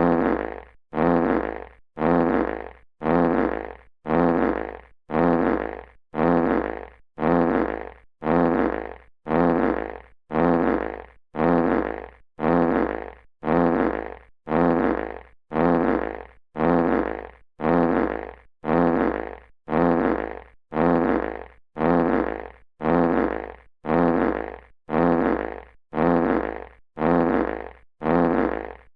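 A classic fart sound effect played on a loop, the same fart repeating about once a second, each one starting sharply and trailing off.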